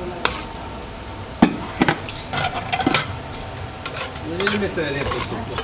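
Metal serving spoon scraping and clinking against an aluminium pan and a ceramic plate as pasta is dished up, with about half a dozen sharp clinks.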